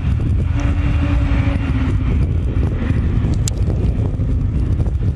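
Wind buffeting the microphone over the distant steady rumble and hiss of an Airbus A220's Pratt & Whitney PW1500G geared turbofans as the jet taxis. A faint low hum sinks slightly in pitch and fades out in the first couple of seconds.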